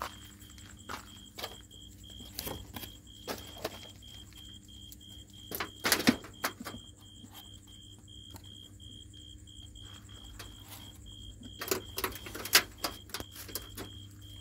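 Scattered knocks and rustles as things are handled and moved, loudest about six seconds in and again near the end. Under them are a low steady hum and a high chirp pulsing about three times a second.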